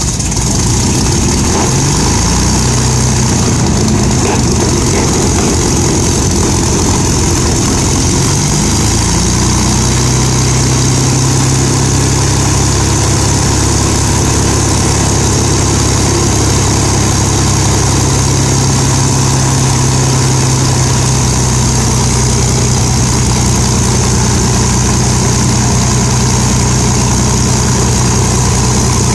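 Rolls-Royce Merlin V12 piston engines of an Avro Lancaster bomber running on the ground during a run-up. The sound jumps up in loudness at the start, the engine note wavers in pitch for about the first ten seconds, then settles into a steady low drone.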